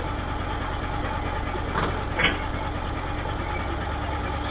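Garbage truck engine idling with a steady low rumble, heard through a security camera's microphone, with two short clanks a little before and after two seconds in.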